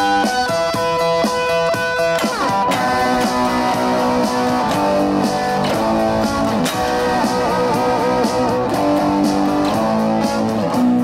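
Electric guitar lead from a Squier Bullet Strat HSS through a Zoom G1X Four multi-effects pedal, over a drum-machine beat. Steady repeated notes give way to a downward slide about two seconds in, followed by bent, wavering lead notes.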